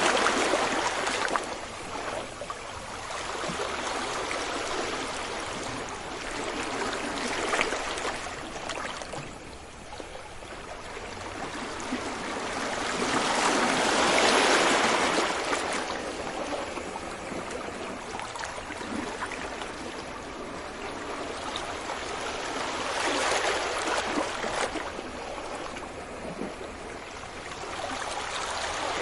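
Ocean waves breaking on a beach: the surf swells and falls back in slow surges several seconds apart, the strongest about halfway through.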